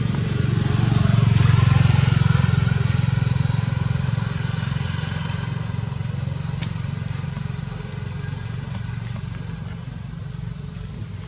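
A motor engine running with a low, steady hum, loudest a second or two in and then slowly fading. A thin, steady high-pitched tone runs under it.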